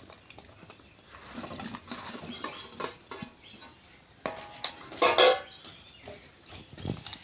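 A steel bowl and spoon clink and scrape against a clay pot as cucumber pieces are tipped in and stirred. The loudest sound is a ringing metal clink about five seconds in, among lighter knocks.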